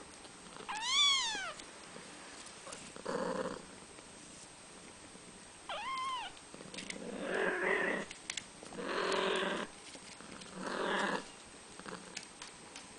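Kitten mewing twice, a high call that rises and falls in pitch, the first about a second in and a shorter one near the middle. Several short rough, breathy cat sounds come in between, each lasting up to about a second.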